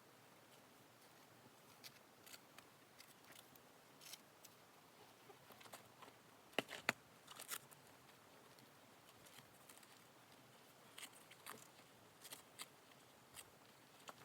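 Near silence with faint, scattered clicks and rustles, and two sharper clicks close together about seven seconds in.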